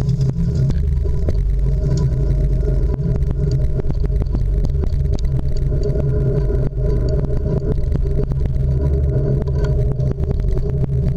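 City street traffic: a steady low rumble of cars driving past, with scattered light clicks.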